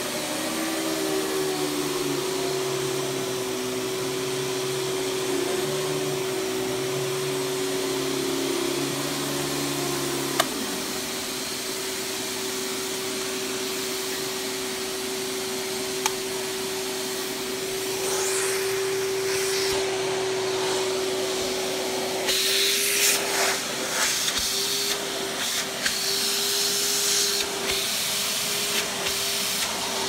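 Hoover PowerMax canister vacuum cleaner running with a steady motor whine. About ten seconds in, a click and the lower droning tones drop away. In the last several seconds, rushing suction noise surges and breaks off in irregular bursts.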